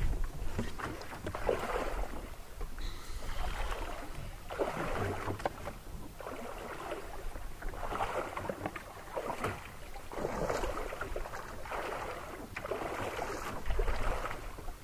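Lake water sloshing and lapping against a canoe hull, with the wash of paddle strokes coming in swells every second or two and a few light knocks.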